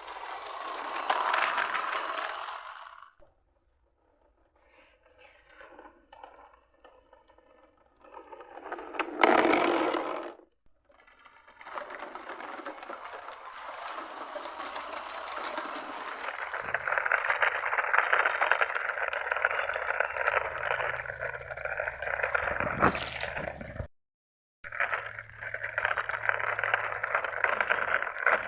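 Miniature toy trucks rolling and scraping across a surface, with a sudden loud knock about nine seconds in, and abrupt gaps where the sound cuts out.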